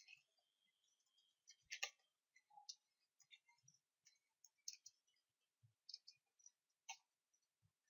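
Faint, irregular clicks of a computer keyboard being typed on.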